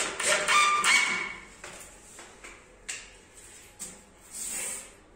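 Cordless drill driving screws into a particleboard cabinet panel in two short whining bursts within the first second. A few light knocks follow as the panel is handled, with a brief scraping rustle near the end.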